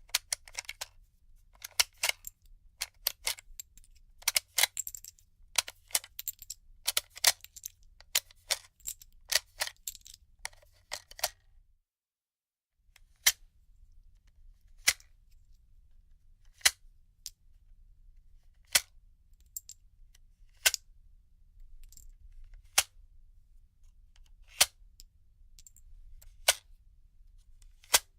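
Cartridges being thumbed out of a gun magazine, each round coming free with a sharp metallic click. For the first dozen seconds the clicks come fast in rattling clusters; after a brief cut to dead silence they come singly, about every two seconds.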